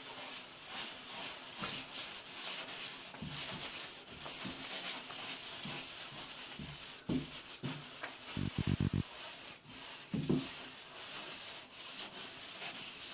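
Sanding block scrubbing back and forth over a wet drywall compound patch, in quick rhythmic strokes of about two to three a second, with a few short low bumps in between.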